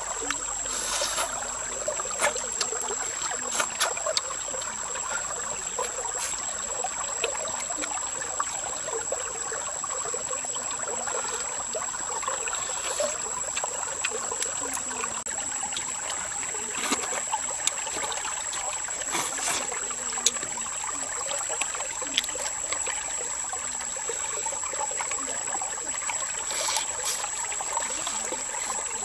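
Shallow forest stream trickling steadily over stones, with scattered sharp clicks and crackles of cooked shrimp shells being peeled and chewed, and a steady high-pitched whine.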